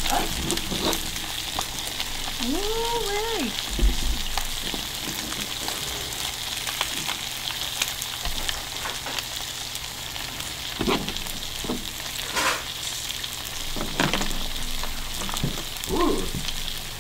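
Fried chicken and melted cheese sizzling on a heated cooking stone: a steady hiss with many small crackles and pops.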